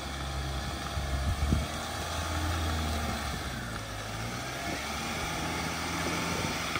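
Mahindra Thar engine running steadily at low revs as the SUV pulls up a slippery off-road track, with a few knocks about a second and a half in.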